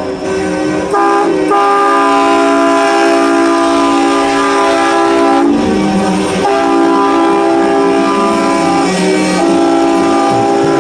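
Several truck air horns sounding together in long, overlapping held blasts that form a loud, steady chord, with short breaks about a second in, in the middle, and near the end.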